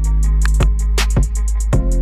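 Background music with a steady drum beat, several hi-hat-like ticks a second over regular low kicks, with a deep held bass and held chords.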